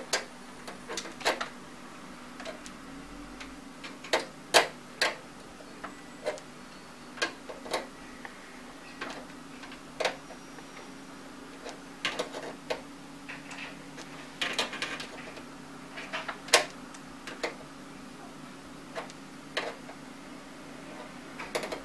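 Metal pliers clicking and tapping against small nuts on the back of a computer case as the nuts are tightened onto the reservoir's mounting screws. The sharp clicks come irregularly, a second or more apart and sometimes in quick pairs, over a faint steady hum.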